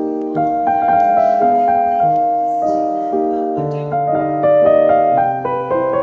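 Background piano music: a melody over held chords, the notes changing every half second or so.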